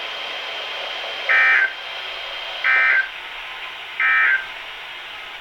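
Three short Emergency Alert System (SAME) digital data bursts from a weather radio, evenly spaced about a second and a half apart over steady radio hiss. They are the end-of-message code closing the flash flood warning.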